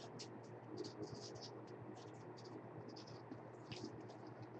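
Pen writing on paper: faint, irregular short scratches as names are written down.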